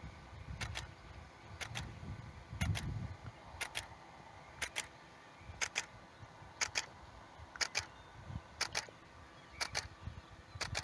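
Sharp double clicks repeating steadily about once a second, over low gusty wind rumble on the microphone.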